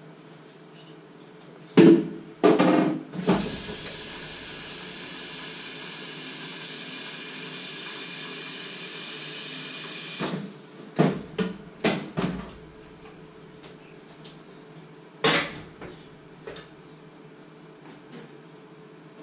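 Kitchen tap running steadily for about seven seconds and then shut off, with sharp knocks and clatter of pots and dishes being handled before and after it.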